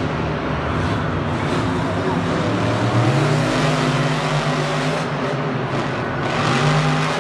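A vehicle engine running and revving, its pitch rising about three seconds in and again near the end.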